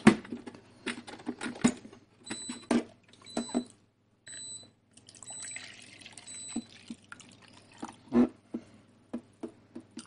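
Water from a dehumidifier's plastic collection tank poured into a plastic measuring jug, a steady splashing pour lasting about two seconds around the middle. Sharp knocks and clicks from the plastic tank and jug being handled come before and after the pour.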